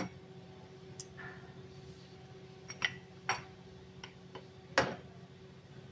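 Sharp metallic clicks and taps of circlip pliers and a steel snap ring against the piston as the piston-pin retaining clip is worked into its groove in a Perkins 1300 series diesel piston. About five separate clicks, the loudest near the end.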